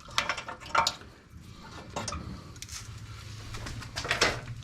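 Metal clinks and scrapes of hand tools working on an ATV's exhaust springs and heat shields, in scattered short knocks. A low steady hum comes in about halfway through.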